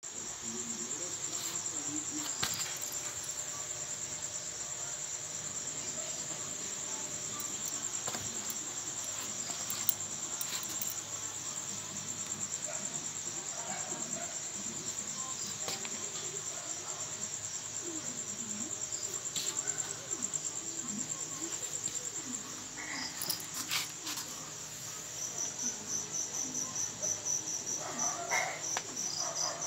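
Crickets trilling steadily at a high pitch, with a second, more sharply pulsed trill joining about 25 seconds in.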